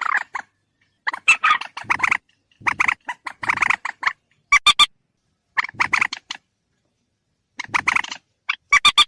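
Recorded rail (burung mandar) calls played as a hunting lure: repeated bursts of fast clucking pulses, about seven in all, each lasting under a second to a second and a half, with short gaps between them.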